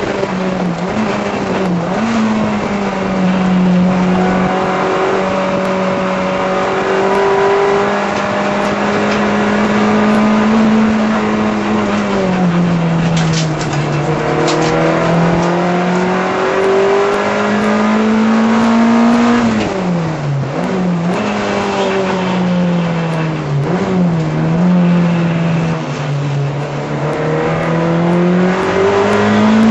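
A VW Rabbit race car's four-cylinder engine running hard at high revs, heard from inside the cabin. The engine note holds fairly steady, then dips briefly twice in the second half as the driver lifts off, and climbs again each time.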